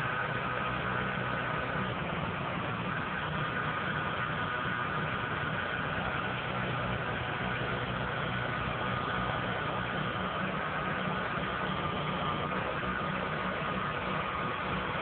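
PODS delivery truck engine running steadily at idle, with a faint steady high whine over it.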